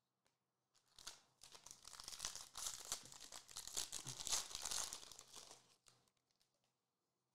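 Foil wrapper of a Panini Prizm basketball card pack being torn open and crinkled. It starts about a second in, runs for about five seconds and stops near six seconds, followed by a few faint ticks.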